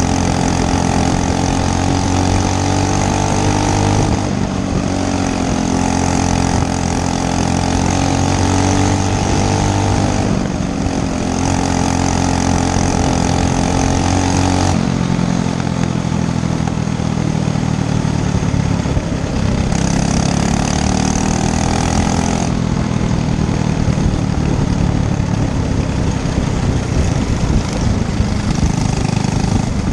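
Racing go-kart engine running hard, its note holding steady for a few seconds, then dropping and climbing again several times.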